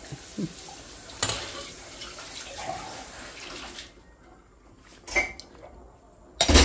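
A metal ladle clinking against a stainless steel pot of simmering vegetable soup. A steady bubbling noise runs for about four seconds with a knock about a second in, then sharper clanks, the loudest at the very end.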